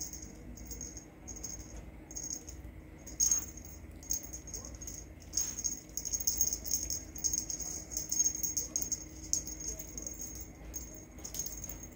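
A dry, high-pitched rattling shaken in quick bursts, nearly continuous in the second half. Two sharp clicks come about three and five seconds in.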